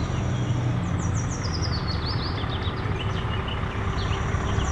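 Scania truck's diesel engine running with a steady low rumble as the tractor unit rolls slowly past, with high bird chirps over it.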